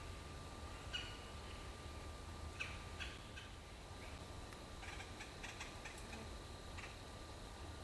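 Scattered short, sharp animal calls in woodland: single ones spaced a second or two apart, then a quick run of several around five to six seconds in. The calls are faint against a steady low hum.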